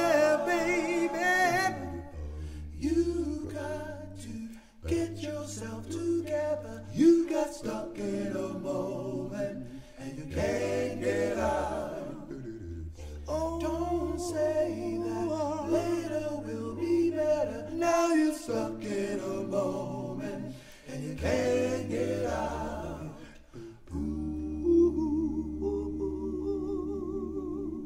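A men's a cappella group singing in close harmony over a deep, held bass voice, with brief pauses between phrases. It is a recording played back through Polk L800 floor-standing speakers and picked up by a microphone in the listening room.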